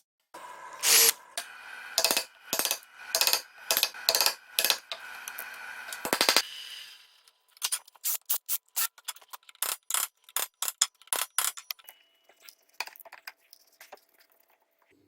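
Sharp knocks and clinks over a steady pitched hum for about the first seven seconds, then a run of separate sharp clicks and taps, about two a second, growing fainter near the end.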